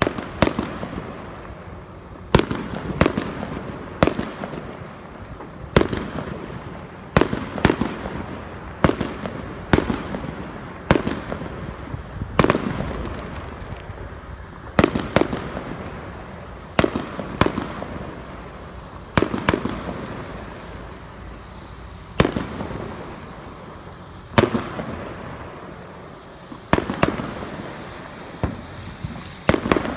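Aerial fireworks shells bursting overhead: about two dozen sharp bangs at uneven intervals of a second or so, some in quick pairs, each followed by a rumbling echo that dies away.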